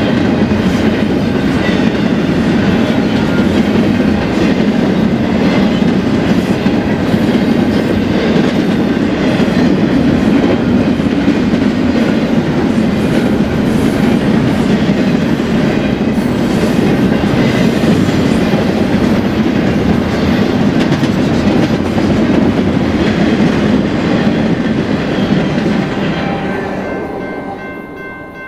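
BNSF freight train cars rolling past, a steady loud rumble with the clickety-clack of wheels over the rails, fading away near the end.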